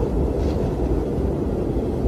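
Strong wind blowing: a steady, deep rushing noise that does not let up.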